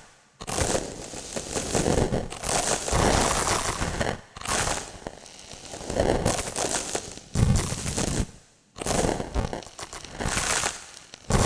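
Three designed sound effects one after another, each a few seconds long and set apart by brief silences, each a dense crackling, crumpling texture with heavy impacts and rumble.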